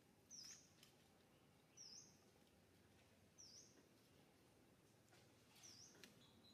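A small bird chirping faintly in the background: four short, high calls that dip and rise in pitch, about a second and a half apart, with a couple of faint ticks.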